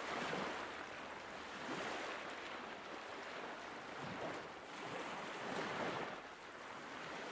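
Small waves of the River Thames lapping on a pebbly foreshore, washing in soft swells every second or so.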